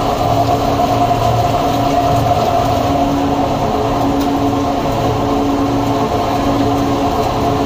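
Textile dyeing machinery running in a factory: a steady mechanical drone with a low hum and a few held tones.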